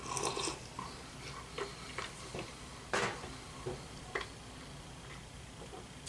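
Sipping hot instant-ramen broth: a slurp at the start, then short clicks and taps of the cup and utensil, the loudest about three seconds in.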